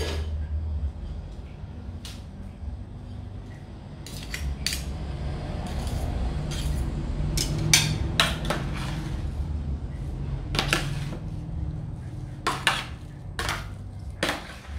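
Metal spatula scraping and clinking against a stainless steel tray as it scoops out mashed sweet potato, in irregular scrapes and clanks.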